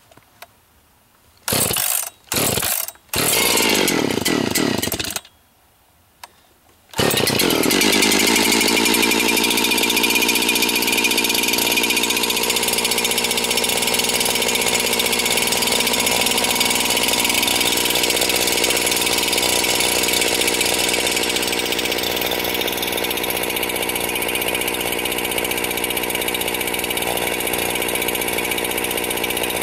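Husqvarna 365 two-stroke chainsaw being pull-started cold, on choke and with the decompression valve set. Three short pulls are followed by a longer burst that falls away as the engine dies. About seven seconds in it fires and keeps running steadily.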